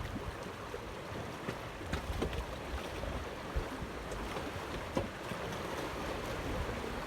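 Wind on the microphone and water lapping around a small fishing boat, with a few faint knocks.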